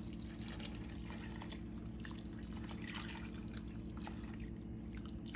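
Water poured steadily from a plastic pitcher into a pot of meat and vegetables, splashing and trickling into the liquid as the pot is topped up to cover the oxtails.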